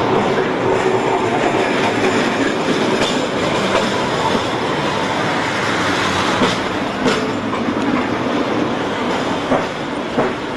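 Hong Kong double-decker electric tram running on the street rails close by, a steady rumble of steel wheels on the track with several sharp clicks.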